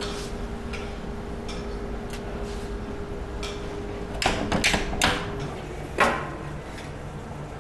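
Commercial oven humming steadily while its door and metal racks clack a few times; then a metal baking tin knocks once on a metal serving tray as the baked loaf is turned out.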